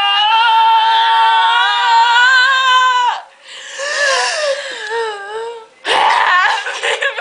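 Girls' voices: one high-pitched squeal held steady for about three seconds, then short wavering cries, then a loud burst of shrieking laughter about six seconds in.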